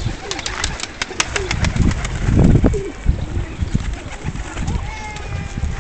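Pigeons cooing, with a quick run of sharp clicks in the first second or two.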